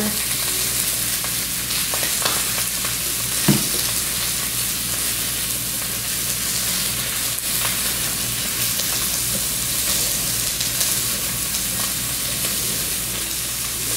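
Salmon nuggets sizzling in a frying pan in a little bacon grease and cooking spray: a steady frying hiss. A single sharp click comes about three and a half seconds in.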